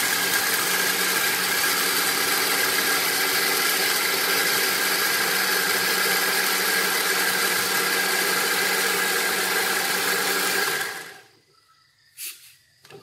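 Panasonic countertop blender motor running steadily while blending corn with liquid for corn milk, then switched off about eleven seconds in and winding down quickly. A short click follows near the end.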